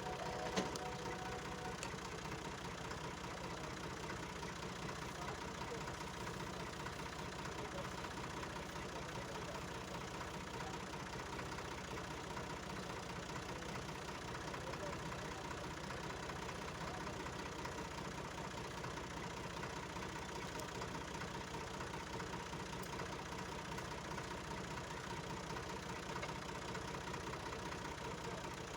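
A steady motor-like drone with a constant hum that does not change, and one brief clatter near the start.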